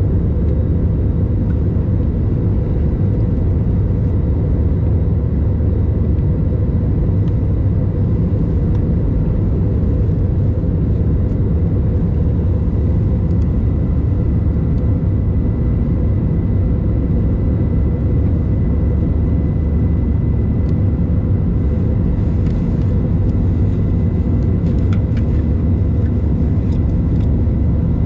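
Steady cabin noise inside an Airbus A321 airliner in flight: a loud, even, deep drone from the engines and airflow, with a faint high steady whine.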